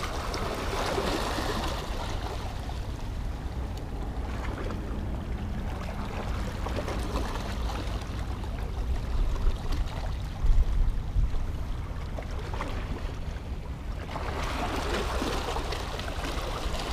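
Small waves washing and splashing against rocks along the shore, with a steady low wind rumble on the microphone and a few louder surges partway through.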